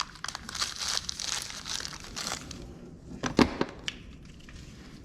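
Plastic crinkling and rustling as small steering parts are handled, followed by a few sharp clicks, the loudest about three and a half seconds in.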